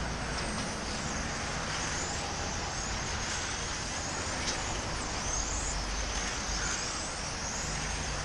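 A field of electric RC touring cars lapping the track, their motors whining in many overlapping high pitches that rise and fall as the cars speed up and slow for the corners, over a steady background rush.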